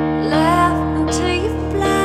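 Slow, gentle music: a held keyboard chord underneath, with a melody line that slides up into a sustained note about a third of a second in.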